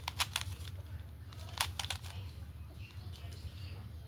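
Plastic Pyraminx puzzle being turned by hand: quick clusters of sharp plastic clicks, one burst at the start and another about one and a half seconds in, then softer handling.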